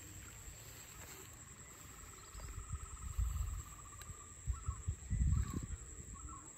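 Evening insects chirring: a steady high-pitched drone with a pulsing trill coming in about two seconds in. Low rumbling thumps rise over it twice, around the middle and near the end.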